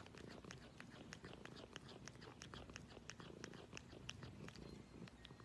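Domestic cat purring softly right by the microphone, with a fast run of light ticks through the purr.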